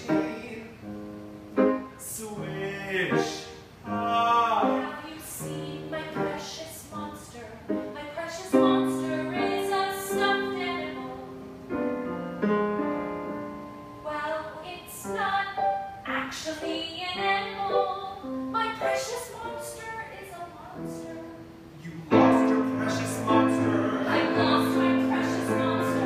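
Operatic singing with piano accompaniment, the accompaniment growing fuller and louder near the end.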